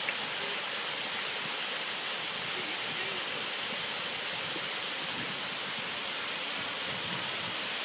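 Steady rush of falling water: an even, unbroken hiss.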